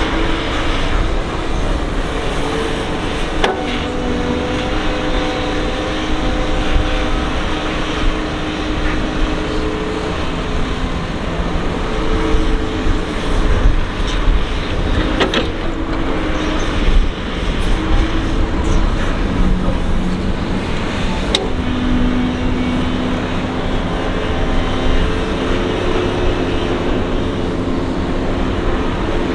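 Doosan DX225LC excavator's diesel engine and hydraulics working steadily under load, the engine note stepping up and down in pitch as it digs and swings. Three sharp knocks stand out: one a few seconds in, one about halfway, and one about two-thirds through.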